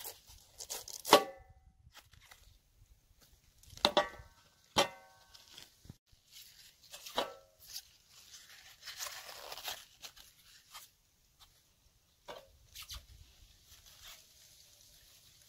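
Cabbage leaves being torn off the head and cut with a knife: a series of crisp snapping and tearing sounds, the loudest about a second in, some followed by a short ring from the steel tray underneath, with a softer rustle of leaves midway.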